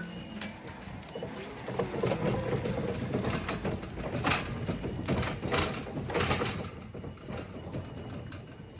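A forklift's engine running under load while a tree is pushed over, with a dense stretch of crackling and snapping wood and branches between about two and six and a half seconds in.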